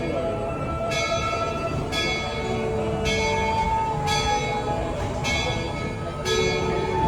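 A bell struck at an even pace, about once a second, six strokes in all, each stroke ringing on into the next, over a steady low background din.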